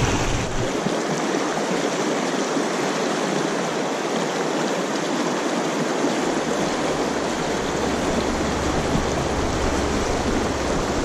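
Shallow, rocky river rushing steadily over cobbles in a riffle.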